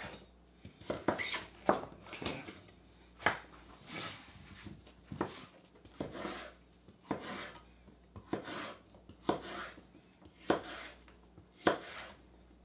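Kitchen knife cutting zucchini on a cutting board: a string of sharp knocks about one a second, some with a short scrape after them.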